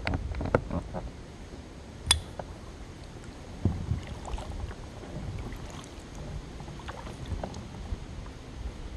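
Kayak paddling on calm river water: irregular paddle splashes and drips, with a few sharp knocks, the sharpest about two seconds in.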